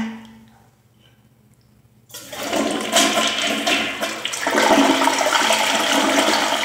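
Toilet flushing: after a short quiet, the water rushes loudly into the bowl about two seconds in and keeps going, not fully clearing the bowl.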